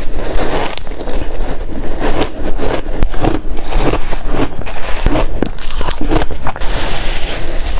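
Shaved ice being bitten and chewed: a dense, irregular run of crisp crunches.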